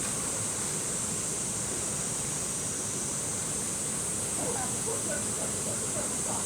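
Steady rush of a mountain stream flowing over rocks, with a constant high-pitched hiss above it. Faint voices come in about four seconds in.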